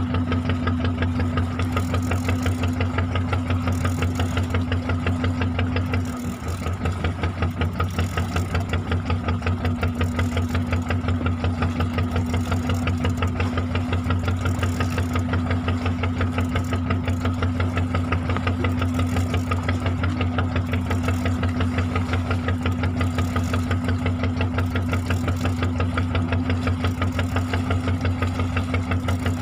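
A boat engine running steadily with an even pulsing beat, dipping briefly about six seconds in.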